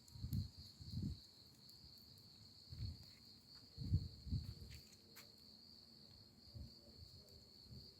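Steady high-pitched cricket chirring, with several low dull thuds, the loudest about four seconds in, and a single sharp click about five seconds in.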